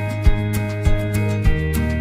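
Background music with a steady beat about every 0.6 s over held pitched notes; the bass note changes about one and a half seconds in.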